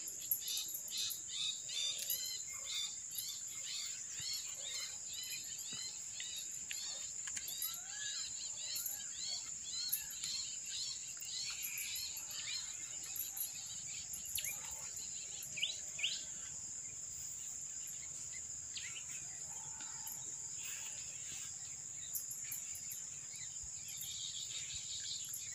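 Steady high-pitched insect drone, with a run of quick, repeated bird chirps through the first half and a few scattered calls later.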